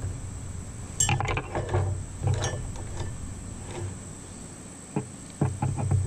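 Leatherman Wave Plus multitool being handled and opened: metal clicks and clinks as its pliers and tools are moved, with sharp clicks about a second in, again around two and a half seconds, and several close together near the end.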